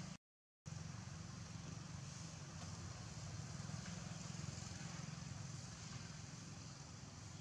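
Steady low outdoor background rumble with a faint hiss above it, cut by a brief total dropout of about half a second just after the start.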